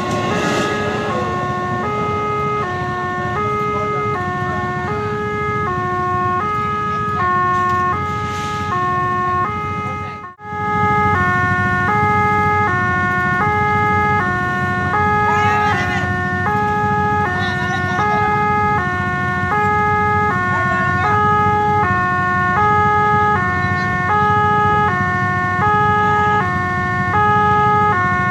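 Railway level-crossing warning alarm sounding an electronic two-tone signal that switches evenly back and forth between a higher and a lower pitch, over and over, while the crossing is closed for a train. Under it is a steady low rumble of idling motorcycle engines, and the sound drops out briefly about ten seconds in.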